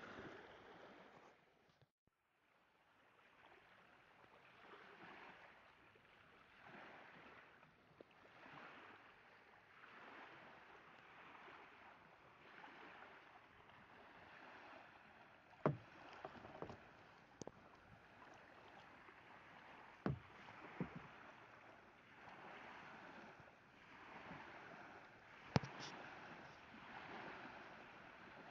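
Faint water sloshing in even swells every second or two, dropping out briefly about two seconds in, with a few sharp knocks in the second half.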